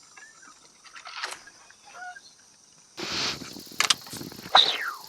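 Harsh animal cries: faint at first, then several loud short calls from about three seconds in, one sliding down in pitch, over a steady high-pitched insect drone.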